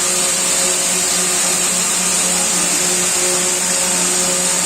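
Open-width circular knitting machine running steadily at high speed: a constant mechanical whir with a strong high hiss over a low hum.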